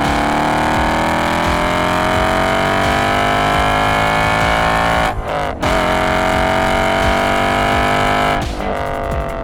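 Ford Mustang GT V8 accelerating hard. The revs climb steadily, dip briefly at an upshift about five seconds in, climb again in the next gear, then drop as the throttle comes off near the end.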